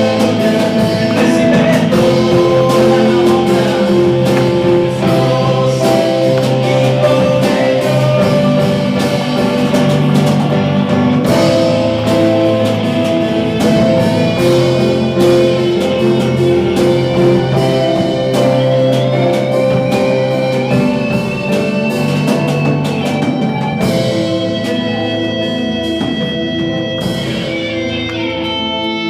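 Band music with guitar and drums, the drums dropping out near the end to leave held ringing guitar notes.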